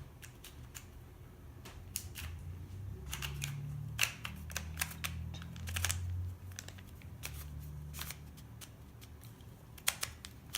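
An original 1980s Rubik's Cube being turned by hand: irregular plastic clicks and clacks as its layers are twisted, over a low rumble of handling. The owner finds that it turns badly and feels tight.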